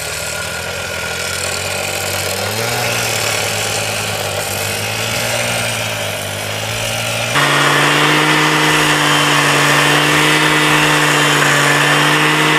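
STIHL two-stroke cut-off saw on a rail-cutting guide, its abrasive disc grinding through a steel rail with the engine running fast under load. About seven seconds in, the engine note jumps higher and the grinding hiss gets louder.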